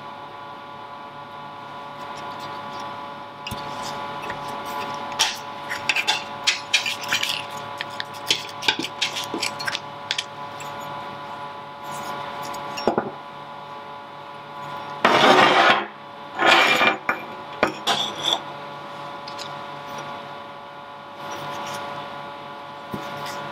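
A rusty steel Estwing hatchet and its leather sheath handled on a metal workbench: a run of light knocks and clicks, then two louder scraping rubs about two-thirds of the way through, over a steady electrical hum.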